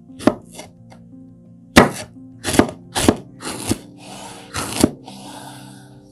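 Chef's knife slicing a red chili pepper on a wooden cutting board: about eight sharp, unevenly spaced knife strikes on the board, with a softer hiss between the last few.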